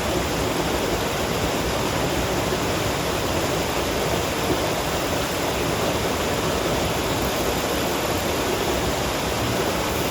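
Steady rush of water pouring over a creek spillway, an even noise without breaks.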